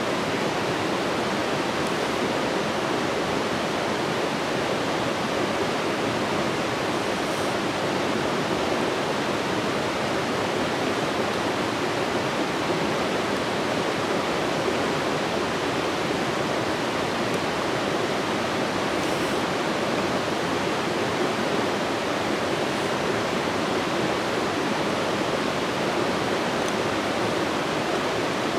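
A steady, even rushing noise, like running water, that holds the same level throughout, with a few faint ticks.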